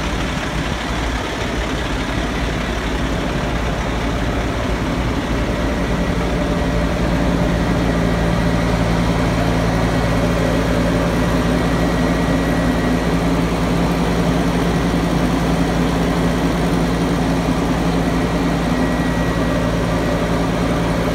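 Semi truck's diesel engine idling steadily, a low hum that grows slightly louder about six or seven seconds in.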